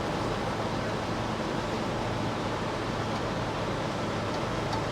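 A steady engine hum with wind rushing over the microphone, unchanging throughout.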